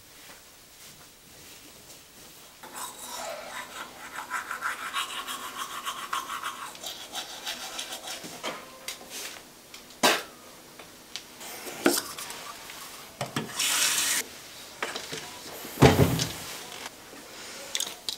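Teeth being brushed with a toothbrush: a rhythmic scrubbing for about five seconds. It is followed by a few sharp clicks and knocks, a short rush of noise, and one loud thump near the end.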